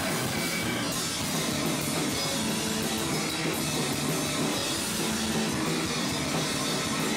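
Live rock band playing: electric guitar and drum kit in an instrumental stretch of a song, with no singing.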